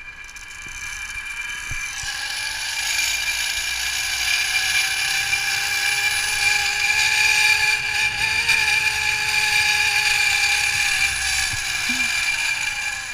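Zip line trolley pulleys running along a steel cable: a whirring whine of several tones that grows louder and slightly higher as the rider picks up speed, holds, then drops in pitch and fades near the end as the trolley slows.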